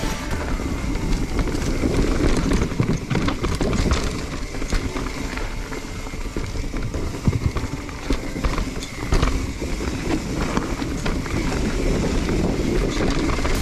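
Mountain bike rolling fast down a dirt singletrack: tyres on dirt and a steady clatter of the bike rattling over bumps and roots, with wind rumbling on the microphone.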